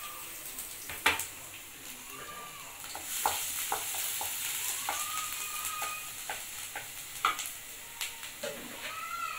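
Chopped garlic sizzling in hot oil in a metal kadai, the hiss growing stronger after about three seconds. A wooden spatula stirs it and knocks against the pan a few times, most sharply about a second in.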